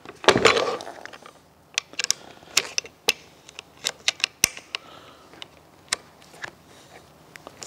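Handling noise from a portable steel-cutting bandsaw as its handle's Allen bolts are undone and the handle is moved: a louder knock and rustle just after the start, then scattered short sharp clicks and ticks of the key and metal parts.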